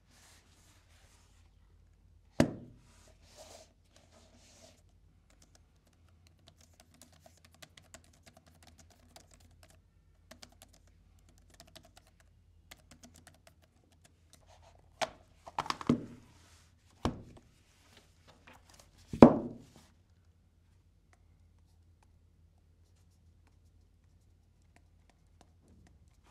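Typing on the Xiaomi Pad 5 keyboard case: many soft key clicks, with a louder thunk about two seconds in and a few heavier knocks a little past halfway.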